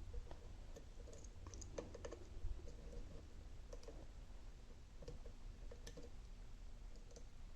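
Faint, irregular small clicks of a pick and tension tool working the pins inside an Alba dimple lock cylinder during picking, over a steady low hum.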